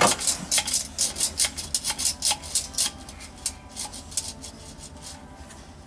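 Plastic toy doctor tools clicking and rubbing against each other and the plastic table, a quick run of about four clicks a second that thins out to scattered clicks about three seconds in.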